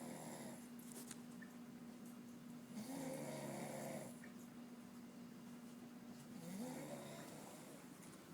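A man snoring in deep sleep, slow and regular. One snore trails off at the start, then two more come about 3 and 6.5 seconds in, each rising in pitch as it starts.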